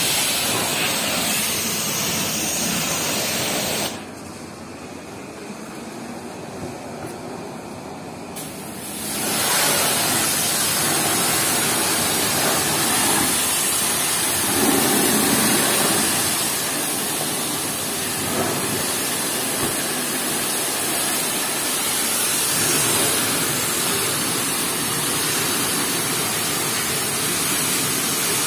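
A high-pressure car-wash wand sprays water onto a car's bodywork with a steady hissing rush. The spray drops away sharply about four seconds in and builds back up about five seconds later.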